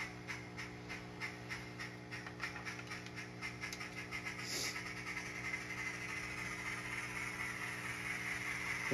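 Sound effects from an N-scale model locomotive's onboard sound decoder, played through its tiny speaker: a steady low hum under a regular ticking of about three or four a second. A hiss swells over the last few seconds.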